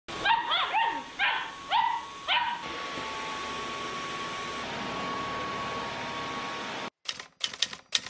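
Samoyed puppy giving about five short, sharp barks, then a cordless stick vacuum running with a steady whirring hum that cuts off abruptly about seven seconds in. Quick typewriter-style key clicks follow near the end.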